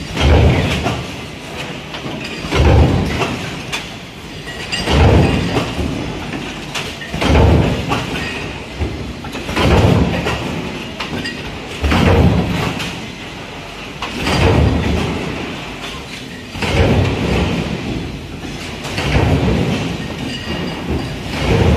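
Mechanical stamping press running continuously with an automatic transfer feeder. Each heavy stroke lands evenly about every two and a half seconds, with steady machine clatter in between.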